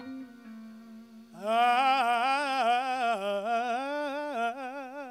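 Male soul singer's voice in a wordless ad-lib: a soft held note, then about a second and a half in a loud run sliding up and down in pitch, settling into a long held note with wide vibrato.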